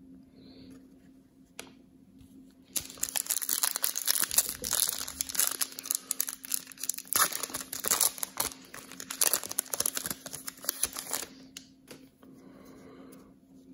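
A 2019 Panini Prizm football card pack's plastic wrapper being torn open and crinkled, starting about three seconds in and stopping about eleven seconds in, with quieter card handling after.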